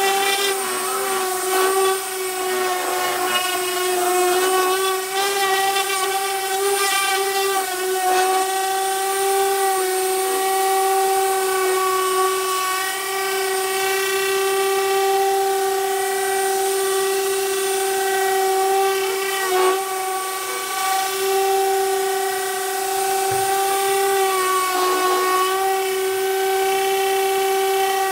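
Parkside PAEXS 20-Li A1 cordless orbital sander sanding OSB board, with a vacuum hose drawing off the dust: a steady high-pitched whine that wavers slightly a few times.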